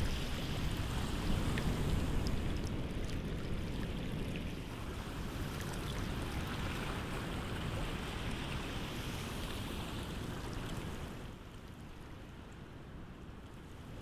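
Shallow seawater washing and trickling over sand and rock, with a few faint drips; it turns quieter about eleven seconds in.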